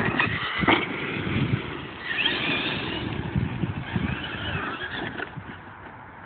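Electric 775 motors of an E-Maxx RC monster truck whining up and down in pitch as it is driven hard, with the chassis and tyres clattering over rough ground. There is a sharp knock under a second in, and the sound drops away a little after five seconds.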